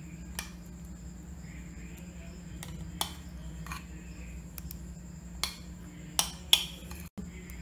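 A metal spoon clinking against a glass bowl about six times as the cream cheese mixture is scooped out and dropped onto bread, the two loudest clinks close together about six seconds in, over a steady low hum.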